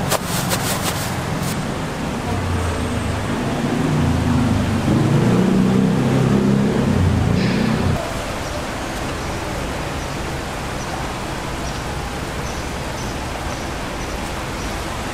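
Steady background traffic noise. A few sharp clicks come near the start, and a louder low engine-like rumble runs through the middle, cutting off suddenly about eight seconds in.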